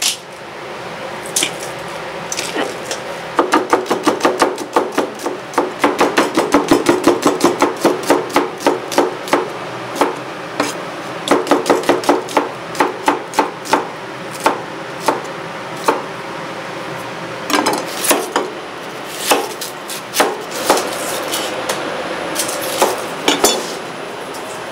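Kitchen knife chopping garlic fast on a wooden cutting board: quick runs of sharp strokes with short pauses between, thinning out in the second half.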